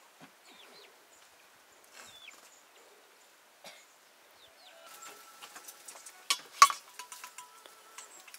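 Metal cooking pots and utensils clattering, with two sharp clanks a little after six seconds in that leave a brief metallic ring.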